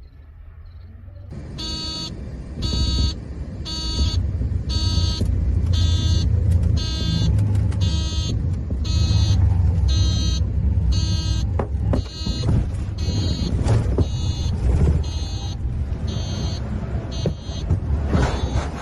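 An electronic warning alarm beeping repeatedly, about once a second, over a steady low rumble, with a few sharp clicks; the beeping stops shortly before the end.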